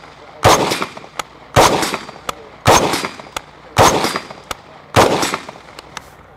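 IWI Tavor bullpup rifle firing five single shots at a steady pace, about one a second. Each shot is followed a moment later by a fainter crack.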